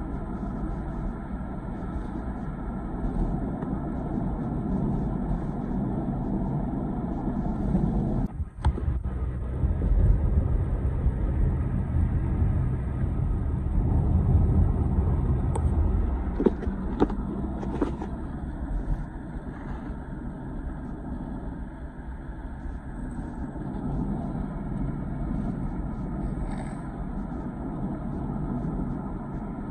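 Steady low rumble of road and engine noise inside a moving car's cabin, briefly cut off about eight and a half seconds in, with a few light knocks a little past the middle.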